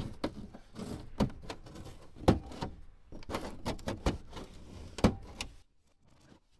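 Plastic retaining clips of a 2007 Dodge Ram's dash top panel snapping loose one after another as a plastic trim tool pries the panel up, with scraping and rattling of the hard plastic between the snaps. Four of the sharp snaps are loudest, and the sounds stop about a second before the end.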